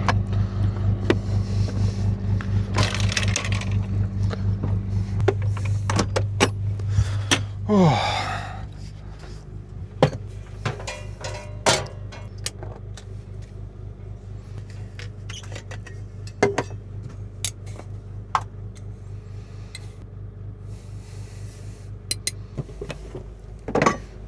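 Portable air compressor running steadily with a rapid pulsing hum while inflating truck tires, loud at first and much fainter from about eight seconds in. Scattered clicks and knocks and a short falling creak about eight seconds in.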